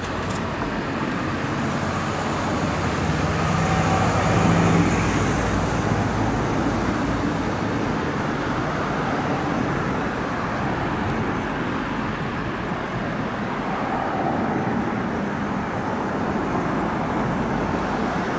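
Steady road traffic, cars passing on a multi-lane street, swelling louder for a couple of seconds about four seconds in.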